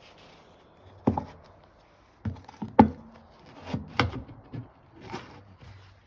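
Irregular knocks and thumps, about half a dozen with handling noise between, as a Porsche 987 Boxster/Cayman seat is lifted and manoeuvred out of the car. The sharpest knocks come near three and four seconds in.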